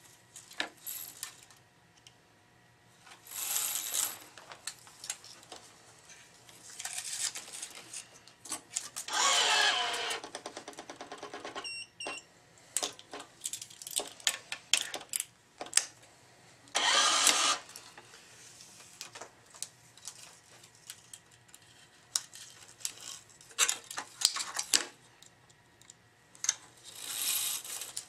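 Tennis racket stringing: nylon string drawn through the frame's grommets in several swishing pulls of about a second each, with metal clamps and tools clicking and clattering on the stringing machine. About ten seconds in there is a quick rattling run, followed by a short electronic beep.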